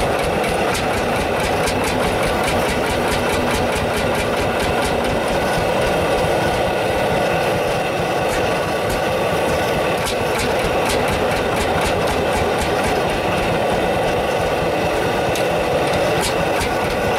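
Single-cylinder two-stroke hot-bulb (semi-diesel) tractor engine running steadily, its regular beat of sharp exhaust knocks going on throughout.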